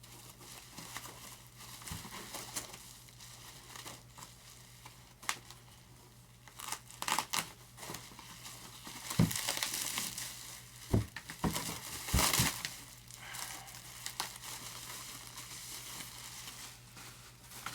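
Packaging wrap crinkling and tearing in irregular bursts as a model airplane wing is unwrapped and handled, with a few sharp knocks, busiest in the middle of the stretch.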